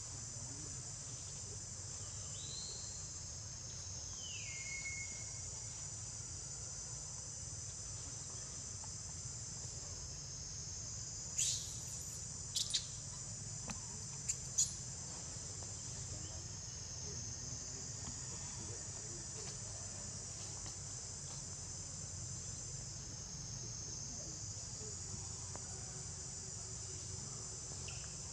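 Steady high-pitched drone of insects in the trees. Two short falling calls sound in the first few seconds, and a handful of short sharp sounds come about halfway through.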